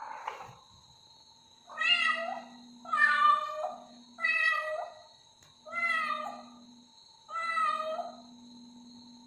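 Young cat meowing five times in a row, about every second and a half, wanting to be let out through a closed door.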